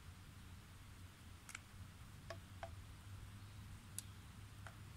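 Cinnamon sticks being snapped into pieces by hand: about five short, dry cracks spread irregularly, over a faint low hum.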